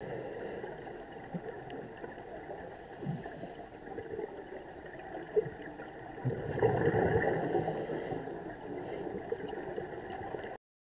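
Underwater sound picked up by the camera: a steady muffled water noise with scattered faint clicks. About six seconds in, a louder gurgling surge lasts roughly two seconds, then it settles back.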